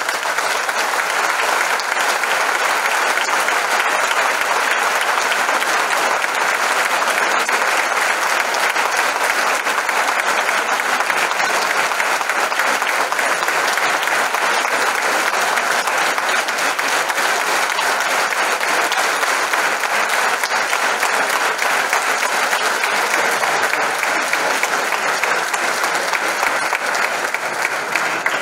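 Large audience applauding, a steady unbroken clapping that falls away only at the very end.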